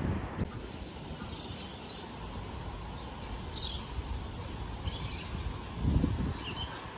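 A small bird chirping, four short chirps spaced a second or more apart, over a low rumble of wind on the microphone, with a brief gust near the end that is the loudest sound.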